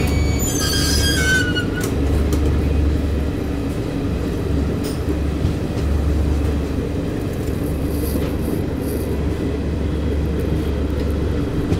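Moving passenger train heard from beside the coaches: the steady low rumble of the running gear on the track. About a second in, a brief high whine falls in pitch.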